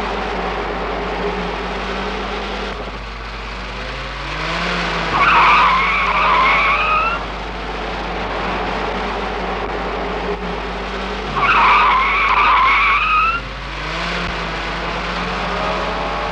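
A car driving fast with its engine running, and two long tyre screeches of about two seconds each, one around five seconds in and one around twelve seconds in. The engine note rises just before each screech.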